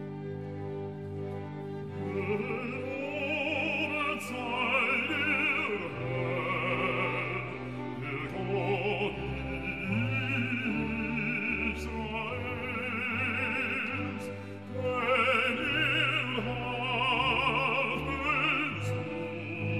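Classical vocal music: a solo singer with wide vibrato over an orchestral accompaniment.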